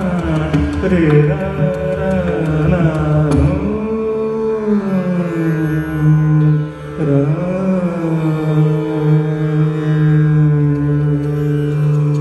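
Dhrupad singing in Raag Shree: a male voice sliding slowly through long, held notes over a steady tanpura drone. Pakhawaj strokes come in during the first few seconds.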